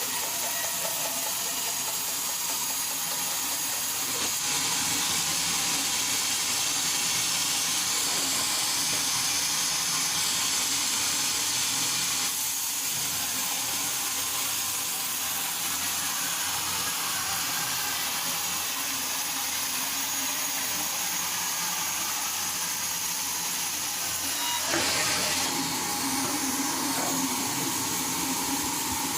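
Sawmill machinery running steadily: a loud hiss over a low machine hum, with a short louder bump a little before the end.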